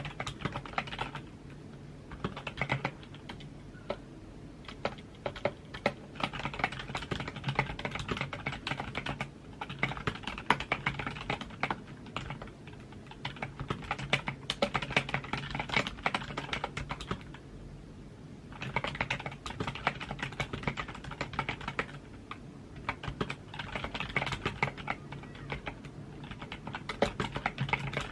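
Typing on a computer keyboard: rapid, dense key clicks in runs of several seconds, broken by short pauses.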